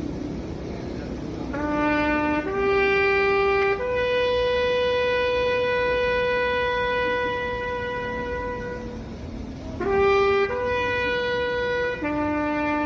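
Bugle call played in long, clear notes. Three notes climb, the top one held for about five seconds, then a second phrase climbs again through the same three notes. The notes sit on the bugle's natural pitches, a rising arpeggio.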